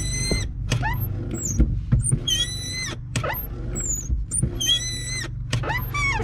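Worn pivot bushings in a 1997 Ford F-Super Duty's brake/clutch pedal assembly squealing as the clutch pedal is pushed and released by foot. There is a high squeak on each stroke, about one a second, some rising in pitch, over a steady low hum.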